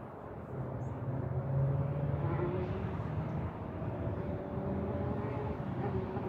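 A steady motor-engine drone, rising about half a second in and then holding, with a low hum in it.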